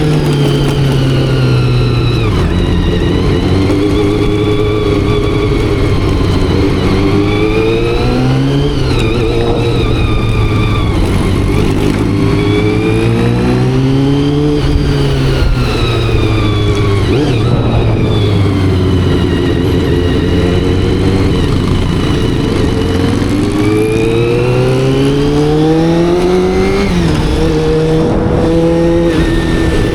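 Honda CBR400RR's carbureted inline-four engine under way, freshly carb-tuned. The revs climb and fall several times with the throttle, the highest climbs peaking about a third of the way in, near the middle and near the end, and dropping off sharply after the last.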